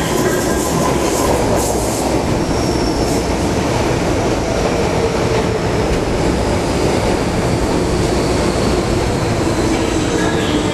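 MTR K-Train electric multiple unit running into the station and passing close by, with steady wheel-on-rail running noise throughout.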